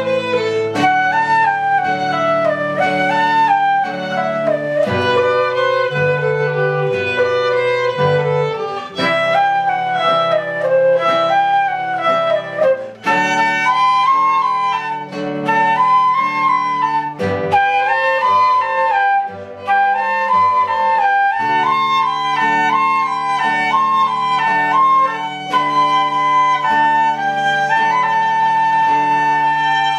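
Live instrumental ensemble music: a flute-like wind instrument plays a quick melody in repeated rising and falling figures over strings.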